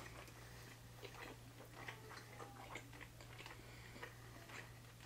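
Faint chewing and mouth sounds of people eating panini sandwiches: scattered soft clicks over a steady low hum.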